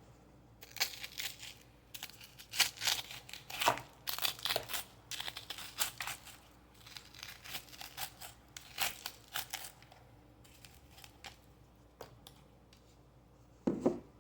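Plastic packaging crinkling and tearing in short, irregular bursts as onions are got out to add to the food. It stops about ten seconds in.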